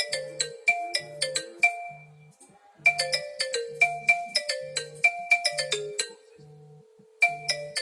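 Viber's incoming-call ringtone playing on an iPhone 12. A quick run of bright notes rides over a low pulsing beat, and the phrase loops about every four and a half seconds with a short pause between repeats.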